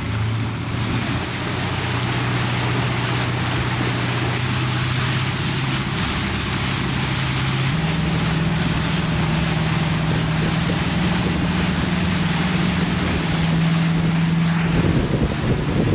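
Motorboat engine running at speed under a heavy rush of wind and water; the engine note steps up in pitch about six seconds in and again a couple of seconds later.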